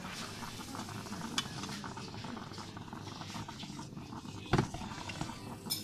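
A steady noisy background with a few small clicks, and one sharp knock a little past the middle.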